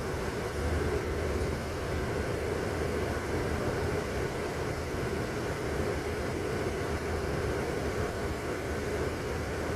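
Steady rumbling noise of a moving vehicle, even throughout, with a deep low rumble and no distinct events.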